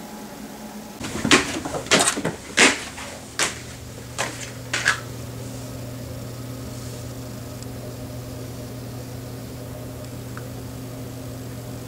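A quick series of about seven knocks and clacks over a few seconds, then a steady low electrical hum.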